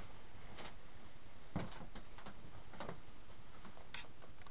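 Faint, irregular clicks and a few soft knocks from a person moving about and walking away from a desk, over a steady low room hum and hiss.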